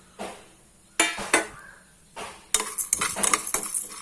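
A spoon stirring and scraping a mix of lentils (roasted gram, toor dal, urad dal, green gram) as it roasts in a pan: a few separate clinks and scrapes, then quick, busy scraping and rattling from about two and a half seconds in.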